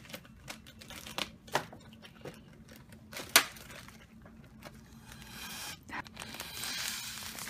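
A plastic Ziploc freezer bag crinkling and rustling as it is handled while air is sucked out of it through a straw. There are scattered sharp crackles, the loudest about three and a half seconds in, and a steadier rustle builds near the end.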